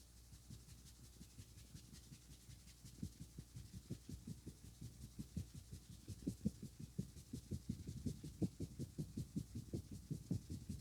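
Hands rubbing over the head, then the rapid percussive strokes of a head massage: soft thumps about four a second, getting louder from about three seconds in and stopping suddenly at the end.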